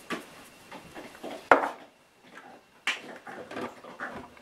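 A few sharp taps and knocks as salt is shaken from a small cup into the plastic bowl of a food processor, with the loudest knock about a second and a half in.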